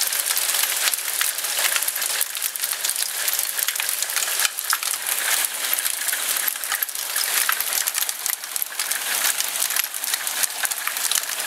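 Nickel-size hail and heavy rain pelting down: a dense, steady clatter of countless small hits over a rushing hiss.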